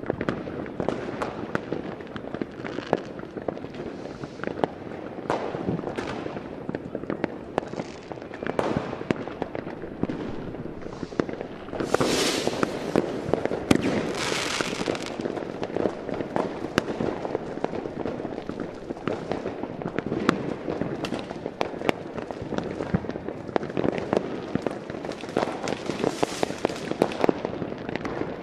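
Continuous dense crackling, with many sharp, irregular pops over a noisy hiss and a louder stretch about halfway through.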